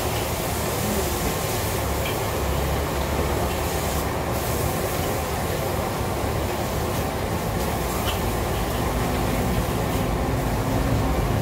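Steady rumble of road traffic with a low engine hum running under it. A few light crinkles come from a plastic bag of crackers being handled.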